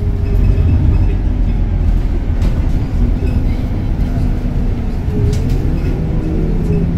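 Scania K230UB city bus under way, heard from inside the cabin: a steady low engine drone with the ZF Ecomat automatic gearbox, and a tone that rises and then falls about five seconds in.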